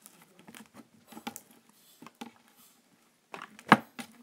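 Cloud slime with foam beads being squeezed and kneaded by hand, giving scattered soft clicks and crackles, then one loud smack of the slime against the tabletop near the end.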